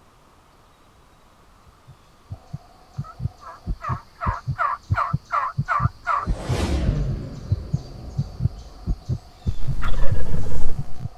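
Turkey yelping, a run of about eight evenly spaced notes, followed by a gobble that falls in pitch. A series of low thumps runs underneath, with a loud rushing burst near the end.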